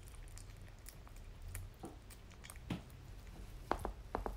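Kitten eating mushy weaning food, giving faint wet smacking and chewing clicks. Near the end the clicks come quicker, about five a second.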